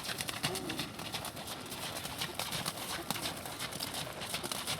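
Hoofbeats of a ridden Thoroughbred horse on the arena footing: a run of irregular clip-clop steps.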